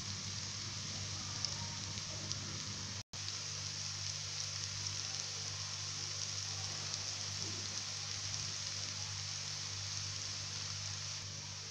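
Kothimbir vadi pieces shallow-frying in hot oil: a steady sizzling hiss with small crackles, over a low steady hum. The sound drops out for an instant about three seconds in.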